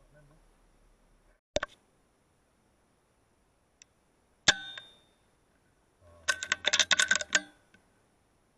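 An air rifle fired once, a single sharp crack with a brief ringing tail about halfway through. About two seconds later comes a quick run of sharp metallic clicks, like the rifle being handled and recocked. A couple of faint clicks come before the shot.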